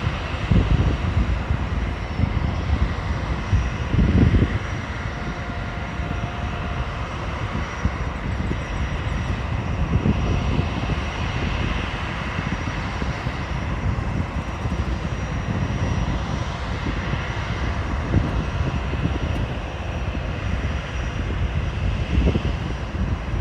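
Boeing 747 jet engines running steadily during a landing: a continuous jet roar with a faint high whine and an uneven low rumble underneath.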